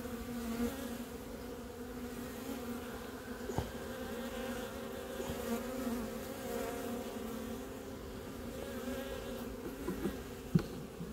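Honeybees of a Buckfast colony humming steadily in the opened hive, a continuous drone from the many bees on the frames. A few light knocks sound near the end.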